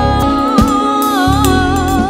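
Gospel worship music: a held melody line that bends and wavers in pitch over a steady bass, with a few sharp drum hits.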